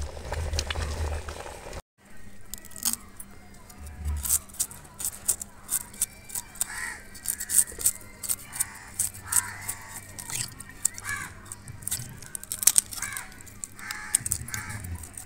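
A pot of tapioca boiling over a wood fire for about the first two seconds. Then a knife scraping and cutting fresh sardines, a long irregular run of sharp scratchy clicks.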